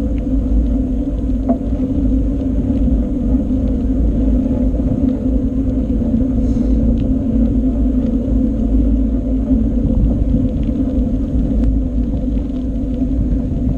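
Steady low rumble of a bicycle ride picked up by a GoPro Session: wind on the microphone and tyres rolling along the road, with a constant hum and a few faint clicks.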